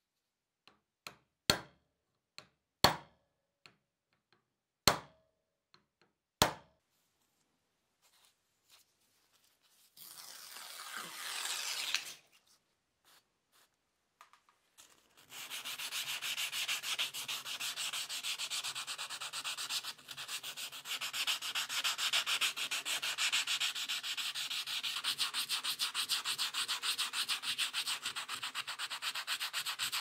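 A few sharp taps in the first seconds, then a short scrape, and from about halfway on steady, quick back-and-forth hand sanding of a metal belt-buckle plate with sandpaper.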